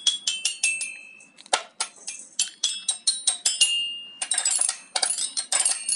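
Children's toy xylophone with eight rainbow bars struck with a plastic mallet: a quick run of bright, ringing notes, about three or four a second, turning into a faster flurry of strikes about four seconds in.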